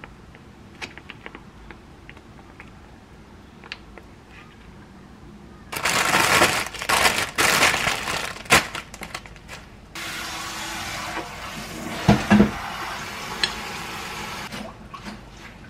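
Clear plastic bag crinkling and crackling loudly for several seconds as lettuce is handled in it, after a few faint clicks. Then a steadier rustle with two sharp knocks as the leaves are set out on a plate.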